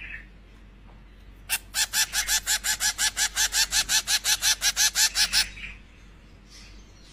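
Zebra finch chick begging while being hand-fed from a spoon: a fast run of repeated calls, about six a second, starting about a second and a half in and lasting about four seconds.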